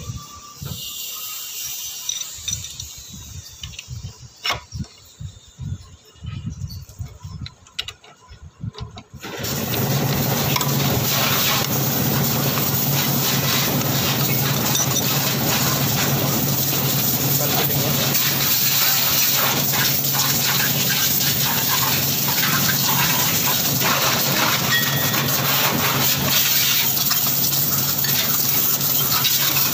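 Scattered light metallic clicks of hand tools working on a scooter's belt-drive pulley. About nine seconds in, a loud steady machine noise with a low hum sets in suddenly and holds.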